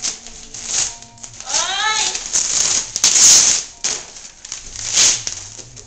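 Wrapping paper being ripped and crinkled off a gift box in a run of rustling tears, the loudest about three seconds in. A brief rising-and-falling voice sound is heard about a second and a half in.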